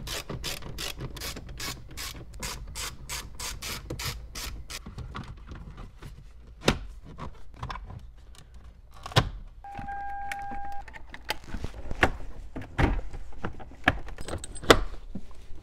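Dashboard trim being refitted: a fast, even run of clicks for the first few seconds, then scattered sharp plastic clicks and knocks as panels are pressed into place. A single steady beep lasting about a second comes near the middle.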